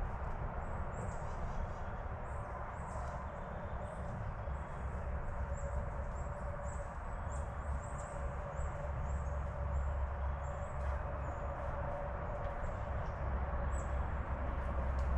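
Woodland dawn ambience: many short, high bird chirps over a steady background hiss and a low rumble.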